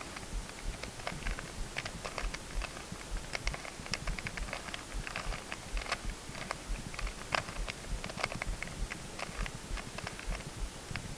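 Plastic Rubik's cube being turned through a move sequence, its layers clicking and clacking many times in quick, irregular runs.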